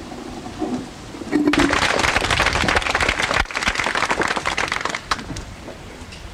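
Audience applauding, a dense patter of many hands that starts about a second in and dies away about four seconds later.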